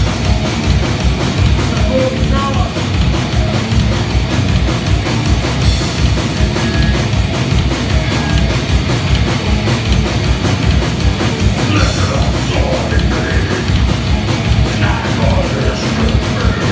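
Heavy metal band playing live and loud: the drum kit drives a fast, dense beat under the guitars, without a break.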